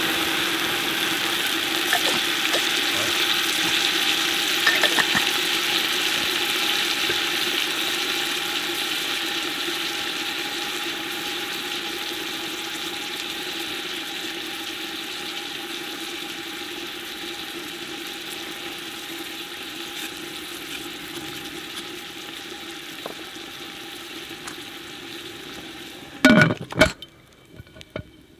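Hot pressure cooker pot sizzling and hissing as water is poured in, the sizzle slowly dying down. About two seconds before the end, a few loud metal clanks as the lid is set on the Afghan cooker.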